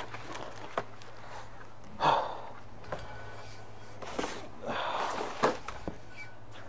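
Unpacking a steel mace from its cardboard box: a few short rustles of cardboard and packing paper, the loudest about two seconds in, with some light knocks, over a steady low hum.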